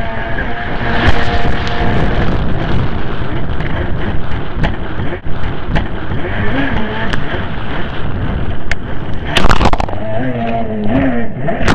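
Racing jet ski's engine running hard, its pitch rising and falling with the throttle, under the rush of spray and wind buffeting the onboard microphone. A loud splash hits about nine and a half seconds in.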